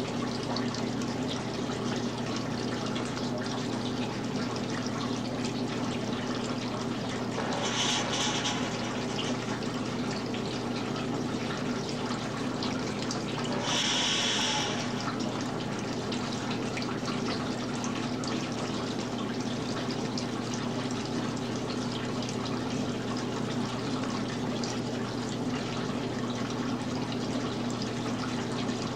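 Water running and trickling steadily through a homemade plaster model waterfall, over a steady low hum. Two short hisses break in, about eight and fourteen seconds in.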